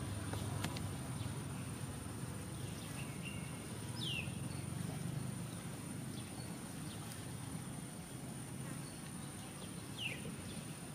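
Outdoor ambience with a steady low rumble and a thin, steady high-pitched whine. Two short calls drop sharply in pitch, one about four seconds in and one near the end.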